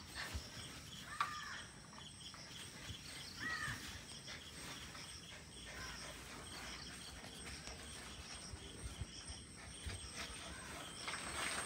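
Quiet outdoor ambience with insects buzzing steadily, two short high calls about a second in and again a couple of seconds later, and soft scuffles and thumps from a puppy playing tug-of-war with a chew toy.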